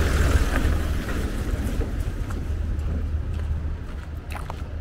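A vehicle engine running close by with a deep, steady rumble, growing gradually fainter as it is left behind.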